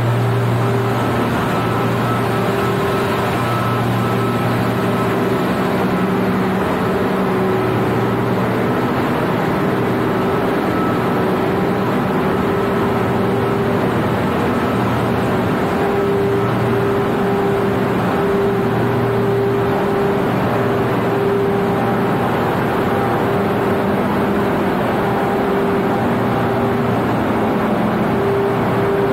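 Ship's engine-room machinery running: a loud, steady drone with a low hum and a higher steady tone over an even hiss.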